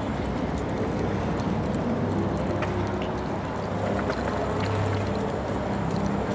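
Wind rushing over the chest-mounted camera's microphone with the tyre and frame rumble of a Zooz electric BMX-style bike rolling along a paved path, with a few light clicks and rattles.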